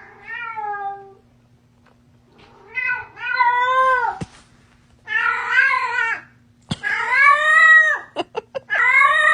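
A cat giving a string of long, drawn-out meows, about five calls of roughly a second each, every one rising and then falling in pitch.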